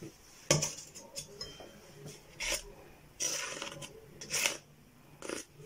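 Metal offset spatula scraping and knocking against an aluminium foil pan while spreading meringue: a series of short scrapes and clinks, the sharpest about half a second in.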